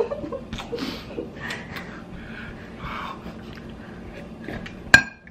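A man breathing hard and sniffing through the burn of a Carolina Reaper chip, then sipping from a ceramic mug. Near the end comes one sharp, loud clink of the mug.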